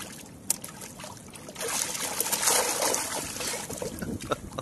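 Sargos (white seabream) splashing and churning in shallow water at the shoreline, a wet trickling and splashing with a few sharp slaps. It grows louder and busier from about a second and a half in, then eases off near the end.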